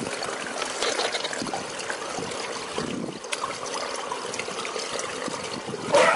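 Swimming-pool water trickling and lapping at the edge, then a sudden loud splash near the end as a swimmer bursts up out of the water.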